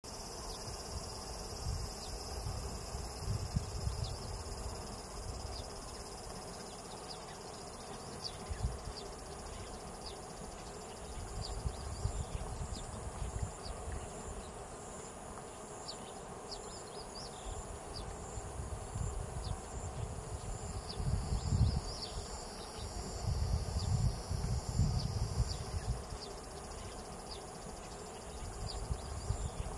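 Chorus of singing insects: a steady, high-pitched pulsing trill throughout, with scattered small clicks and irregular low rumbles that are loudest in the second half.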